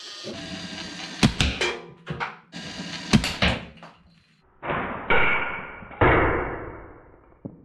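Plastic balls fired from a Lego Technic tank's gun, knocking over stacks of Lego bricks: a quick run of sharp clicks and clatters, then three louder crashes that each die away slowly.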